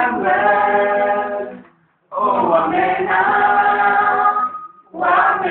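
Several voices singing together without instruments, in held phrases broken by two short pauses.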